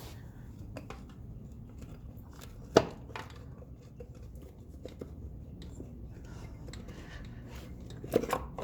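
Light clicks and knocks of a metal motorcycle engine side cover being wiggled off its crankcase in a tight fit, with one sharp knock about three seconds in and a couple of clunks near the end.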